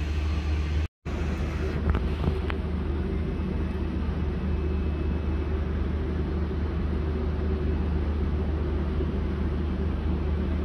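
Steady low drone of a standing diesel passenger train idling at the platform. A couple of faint clicks come about two seconds in.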